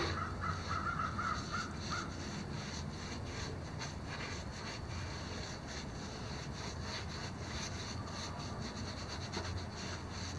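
Paintbrush scrubbing thick deck-resurfacing coating into weathered wood deck boards in short, repeated bristly strokes. Near the start a bird calls a quick run of harsh notes for about two seconds.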